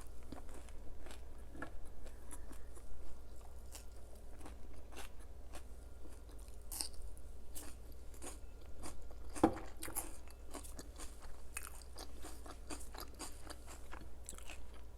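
Close-miked chewing of crunchy food: a run of crisp crunches and small mouth clicks, with one sharper crunch about nine seconds in.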